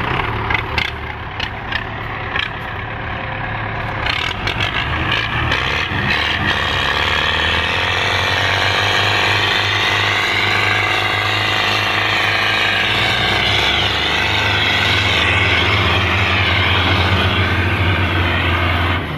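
Belarus 510 tractor's diesel engine running hard. It builds up about four seconds in and is held at high revs. A few sharp clicks or knocks come in the first few seconds.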